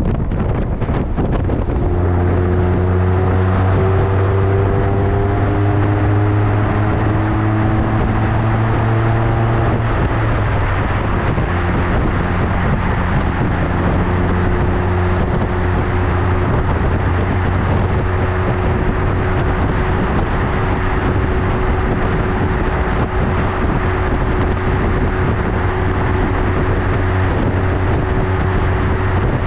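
Motorcycle with a Yoshimura Slip-On Oval Cyclone exhaust, heard while riding. The exhaust note climbs slowly for several seconds as it gathers speed, then holds steady at cruising speed. Heavy wind noise on the microphone runs throughout.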